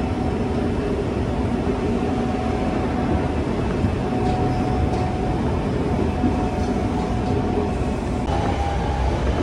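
Running noise of a Senboku Rapid Railway electric commuter train heard from inside the car: a steady rumble of wheels on rail as the express runs through a station at speed without stopping, with a faint steady tone that comes and goes.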